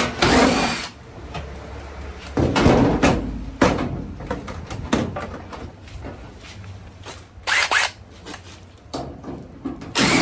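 Sheet-metal panels of a GE clothes dryer being handled during disassembly: irregular knocks, clunks and scraping slides, with a brief squeak about three-quarters of the way through.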